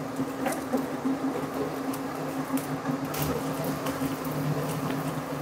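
Food sizzling in a frying pan on a gas stove, with a spatula scraping and tapping the pan in scattered clicks, over the steady hum of a range hood fan.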